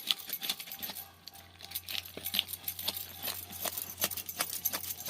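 Many quick, irregular light metallic clinks and jingling, with a faint steady low hum underneath.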